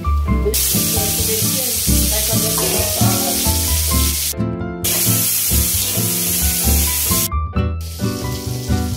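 Sliced bell peppers sizzling in a hot wok, over background music with a steady beat. The sizzle cuts off abruptly about halfway through and again near the end, coming back fainter after the second break.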